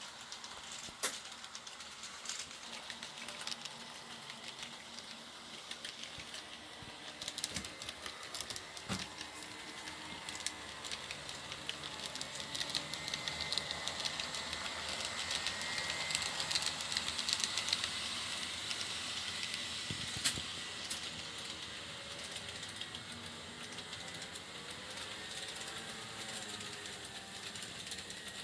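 Model train running on 1/80-scale 13 mm-gauge layout track: a steady rolling rattle dotted with clicks of wheels over rail joints, growing louder as the train comes closer about halfway through, then easing off.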